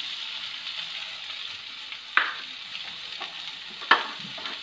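Chopped onions sizzling steadily in hot coconut oil in an aluminium kadai, just added to be softened, with two sharp pops, one about two seconds in and one near the end.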